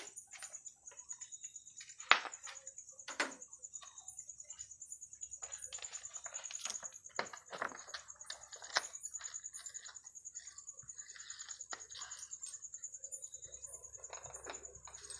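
Scattered sharp clicks and taps of hands working sticker lettering onto a truck body, the loudest about two seconds in. A steady high insect trill runs underneath.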